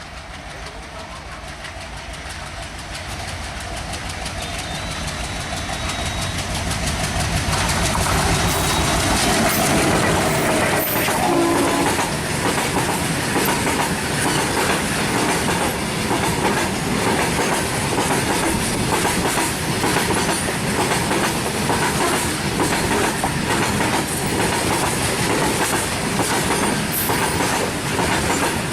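Freight train drawing near, growing louder over the first eight seconds, then its wagons passing close with a steady clickety-clack of steel wheels over the rail joints.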